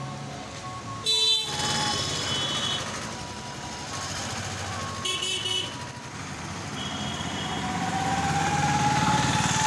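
Road traffic: a vehicle horn honks briefly about a second in and again about five seconds in, over a steady traffic hum. Toward the end a vehicle approaches, its engine rising in pitch and getting louder.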